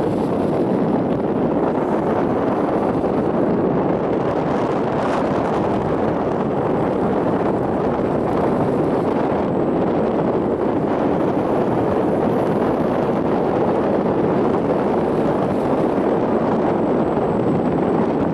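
Steady rumble and rush of a Vivalto double-deck commuter train running at speed, heard from inside the upper deck.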